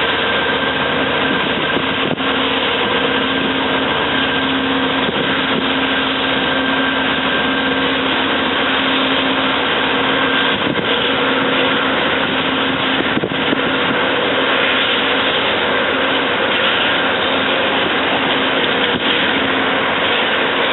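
A train running steadily: loud, even noise with a faint steady hum underneath.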